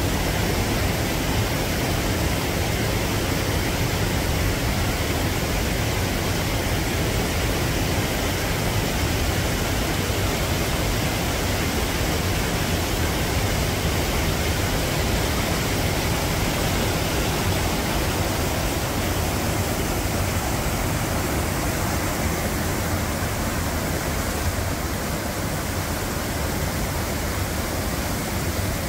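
Waterfall and rapids: water rushing steadily over rock ledges in an even, unbroken wash of noise.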